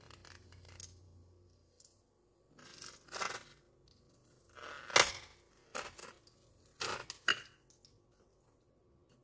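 A hot knife cutting down through a plastic blister pack of Smarties: several short bouts of crinkling and crackling plastic, with a sharp click about five seconds in, the loudest of them.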